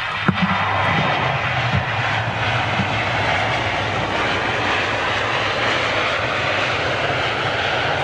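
Jet airliner engines, a loud steady noise that holds throughout, with a single sharp knock near the start.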